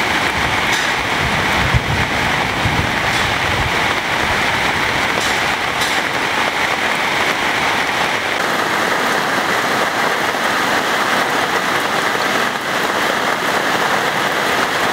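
Heavy rain falling steadily on a street, a dense even hiss of water. About halfway through, the low rumble beneath it drops away.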